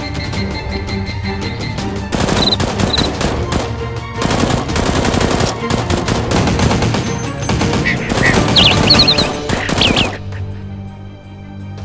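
Rapid automatic gunfire sound effects, dense bursts from about two seconds in until near the end, over background music. After that only the music continues.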